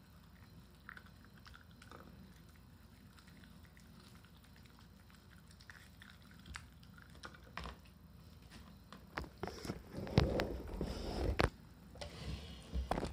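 Shiba Inu chewing a piece of chicken jerky. At first there are only a few faint clicks of teeth, then louder, quicker chewing and crunching over the last few seconds.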